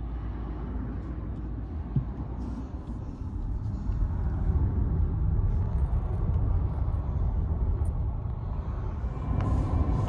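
Low, steady rumbling noise in the cabin of a Nissan Leaf electric car in a traffic jam, with no engine note; it grows louder about four seconds in.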